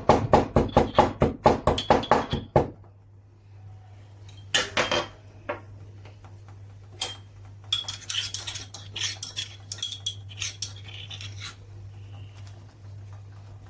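Pestle pounding a small green cardamom pod in a mortar: quick regular strikes, about five a second, that stop about two and a half seconds in. Scattered lighter clinks and taps follow.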